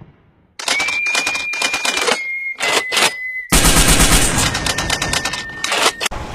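Automatic gunfire sound effect: rapid bursts of shots with short breaks a little after two and three seconds in, over a steady high tone.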